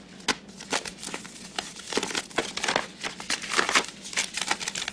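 Paper rustling and crinkling as a telegram is opened and unfolded by hand: an irregular run of short crackles.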